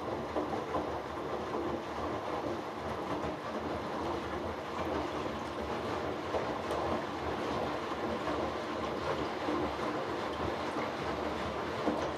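Hoover Dynamic Next front-loading washing machine in its final rinse, the drum turning and tumbling a wet load of dark clothes through rinse water with a continuous rumbling and sloshing. The noise stops abruptly near the end as the drum pauses.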